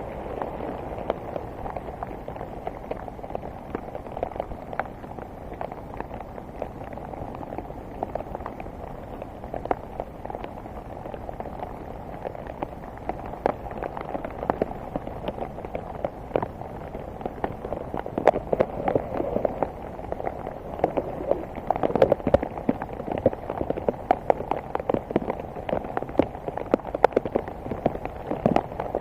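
Rain pattering: a dense run of irregular drop ticks over a steady hiss, getting busier and louder after about eighteen seconds.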